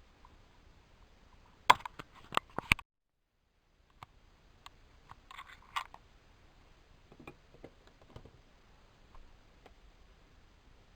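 Handling noise from a toy alarm clock: a quick run of sharp clicks and knocks, then a second of dead silence, then scattered faint clicks and rustles.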